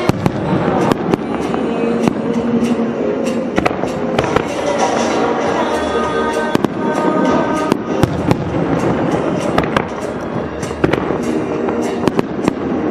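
Aerial firework shells bursting in quick succession: an irregular string of sharp bangs, several a second, over loud music played for the show.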